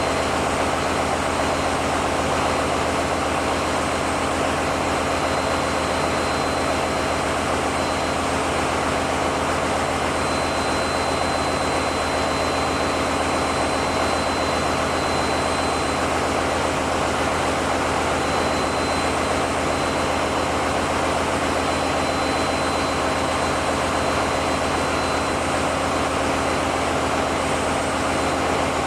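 Steady, loud engine-room machinery noise from running diesel generator engines: a constant low hum under dense mechanical noise, with a thin steady high tone above it.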